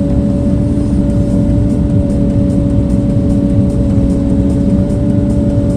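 Engine of a bladed earthmoving machine running steadily: a continuous low rumble with a steady hum held at one pitch.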